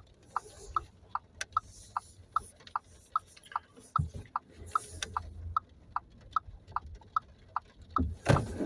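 Car turn-signal indicator clicking steadily, about two and a half ticks a second, over low cabin rumble, with a brief louder noise near the end.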